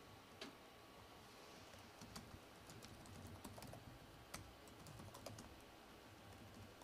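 Faint typing on a computer keyboard: irregular keystroke clicks as shell commands are entered.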